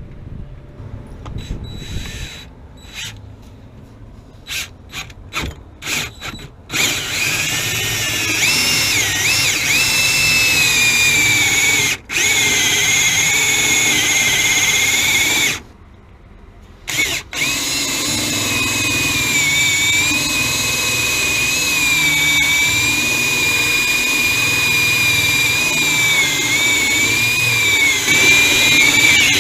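Power drill boring a hole. It starts with a few short trigger bursts, then runs steadily under load with a wavering high whine, pausing once briefly about halfway through before running on.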